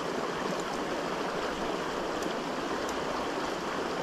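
River water running steadily, a continuous even rush of flowing current.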